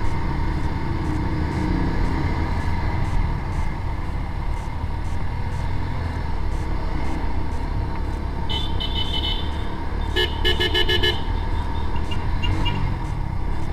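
Vehicle horn honking in short toots: once about eight and a half seconds in, then a rapid stuttering string of toots a second and a half later, over the steady rumble and wind of a motorcycle riding in traffic.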